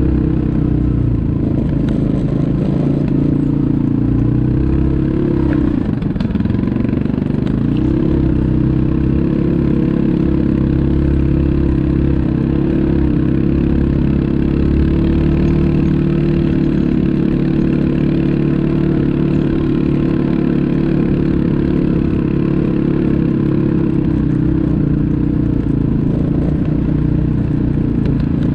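ATV engine running steadily under way. Its pitch drops briefly about six seconds in and then picks back up, then holds with small changes in revs.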